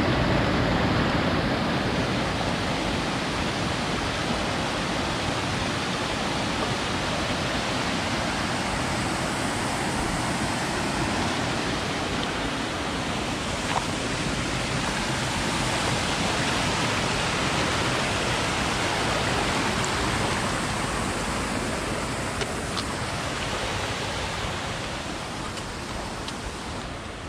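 Rushing water of a rocky mountain creek, a steady whoosh that grows quieter toward the end.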